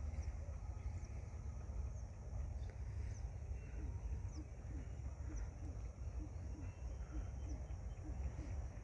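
Rural field ambience under a steady low rumble, with faint high bird chirps now and then. From about four seconds in, a short low animal call repeats about twice a second.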